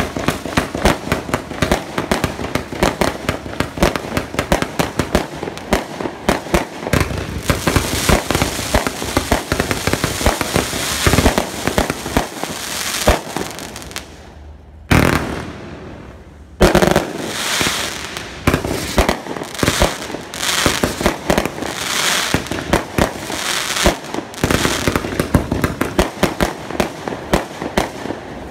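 Multi-shot consumer fireworks battery (cake) firing a rapid, continuous barrage of shots and crackling breaks, with a short break a little past halfway before the rapid firing resumes.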